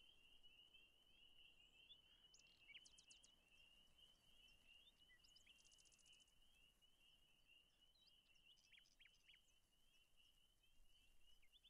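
Faint nature ambience: insects trilling steadily at one high pitch, with short bird chirps here and there, busiest about three seconds in and again about nine seconds in.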